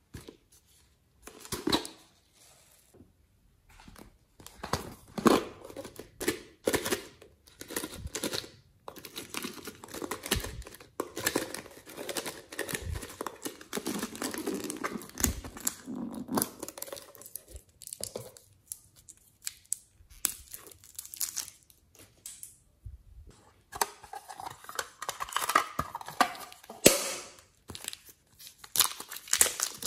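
Close-up handling of plastic containers and packaging: irregular crinkling and crackling of plastic. Near the end a plastic bag of soft modelling clay is opened.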